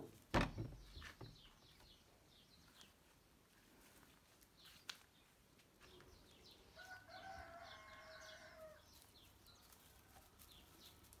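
A rooster crows once, a call of about two seconds starting about seven seconds in, over faint chirping of small birds. A few knocks near the start are the loudest sounds.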